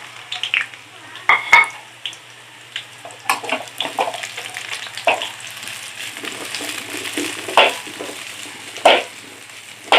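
Sliced carrots, potatoes and red and green bell peppers frying in hot oil in a pan, a steady sizzle broken by irregular sharp spatters and the knocks of a utensil stirring against the pan.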